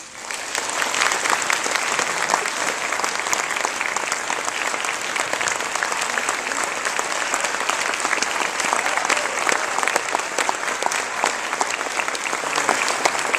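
Audience applause breaking out right after the final chord of a handbell piece, many people clapping densely and steadily: the applause marks the end of the performance.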